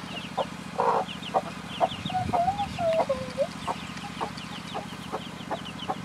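A broody hen clucking repeatedly, about one or two short clucks a second, with one longer wavering call partway through. Over this, her newly hatched chicks peep in quick, high, falling chirps.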